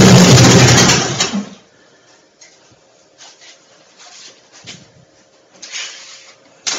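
Starter motor cranking a rebuilt Ford 5.0 302 V8 loudly, stopping about a second and a half in without the engine catching. Then faint clicks and rattles of tools at the wiring, with a sharp click near the end.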